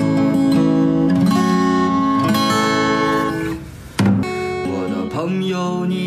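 Strummed acoustic guitar playing an instrumental passage. It fades out about three and a half seconds in, and a new passage of music starts abruptly about four seconds in.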